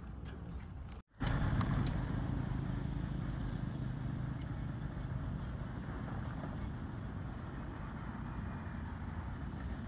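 Steady low rumbling background noise. It cuts out for an instant about a second in and comes back slightly louder.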